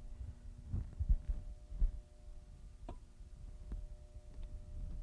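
Irregular dull low knocks and a few light sharp clicks of metal suspension parts being handled and set in place while the strut's lower mounting is fitted.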